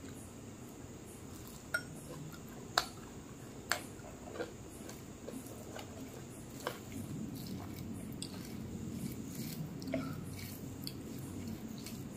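Bare hand mixing rice with curry on a plate: soft, wet squishing of the food, with a handful of sharp clicks as the fingers and rings knock the plate.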